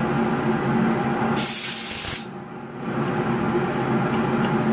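A short hissing blast of compressed air about a second and a half in, lasting under a second, blowing the dust out of sawn dental stone dies. A steady machine hum runs underneath.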